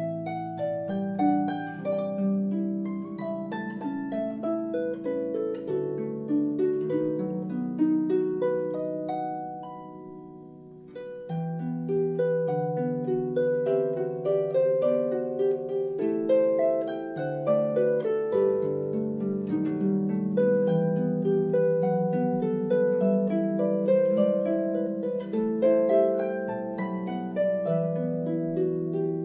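Instrumental background music of plucked string notes in a gentle melody. It dips in level about ten seconds in, then picks up again.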